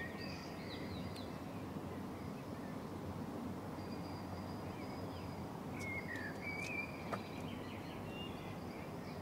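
Steady outdoor background noise with scattered bird chirps and short calls, busiest past the middle.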